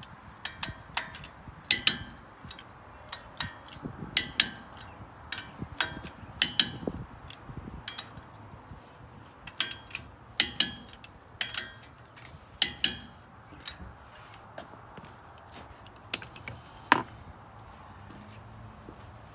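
Ratchet wrench and socket clicking in short irregular runs with a metallic ring as the wheel spacer's lug nuts are tightened onto the hub, ending with one louder click.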